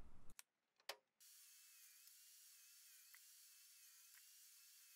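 Near silence: a faint hiss with a faint wavering tone, one sharp click about a second in, and a few soft ticks.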